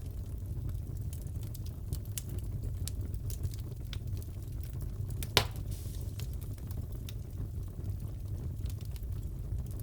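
Crackling fireplace: a steady low rumble of the fire with scattered sharp crackles and one loud pop about five seconds in.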